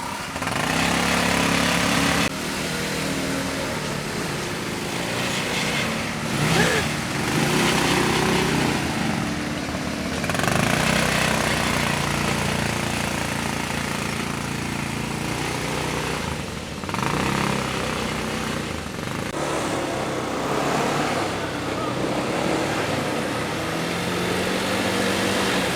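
ATV engine running under way, its pitch rising and falling with the throttle, over continuous rumble and wind noise.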